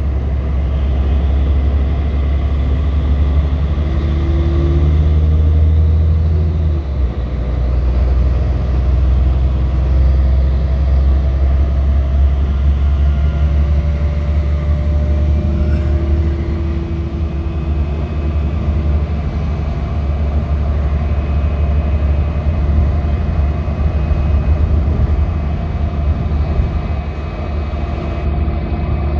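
Ride in a city bus: steady low rumble of the engine and road noise, with engine tones shifting in pitch as the bus speeds up and slows.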